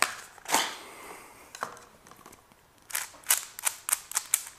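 A couple of knocks and rustles as packaging is handled, then, from about three seconds in, a quick run of sharp plastic clicks, about three a second, as the layers of a QiYi 5x5 puzzle cube are turned.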